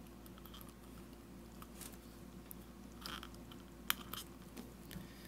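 Faint handling of insulation-tester test leads being clipped onto a power plug's prongs: light rustles and small plastic-and-metal clicks, the sharpest about four seconds in.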